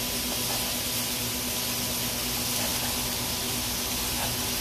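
Ground beef sizzling on a hot flat-top griddle, a steady hiss, with a few soft knife chops on a wooden cutting board.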